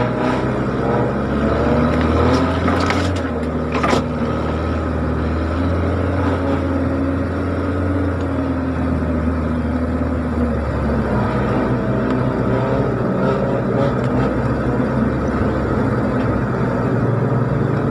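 Off-road 4x4's engine running at low revs as it crawls over a rocky riverbed, heard from inside the cab. A few sharp knocks come about three and four seconds in.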